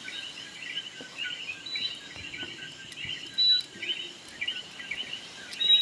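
A chorus of short, high chirps from small animals, many overlapping calls repeating irregularly, with one louder chirp a little past halfway.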